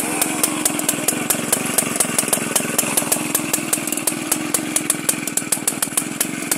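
Vintage two-man chainsaw's engine idling slowly, with sharp, evenly spaced pops about six times a second over a steady running hum.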